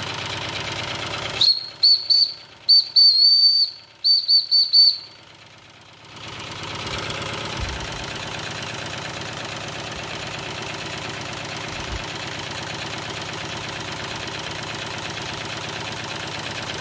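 Steam whistle on a Wilesco D32 model steam engine's boiler, blown in a quick run of about nine short, high toots from about a second and a half in, lasting roughly three and a half seconds. Afterwards the model steam engine runs on steadily.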